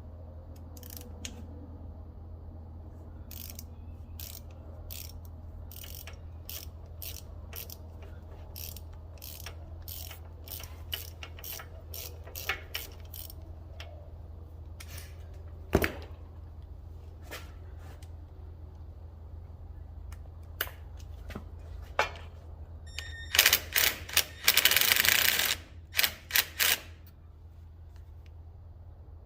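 Hand ratchet wrench clicking, about two clicks a second for the first half, then sparser, over a steady low hum. Near the end come a few loud knocks and a harsh noisy burst of about two seconds.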